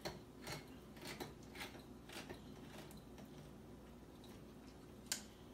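Hand-held manual can opener turned around the rim of a metal food can, cutting the lid with faint clicks about twice a second that fade after about three seconds, then a sharper click near the end.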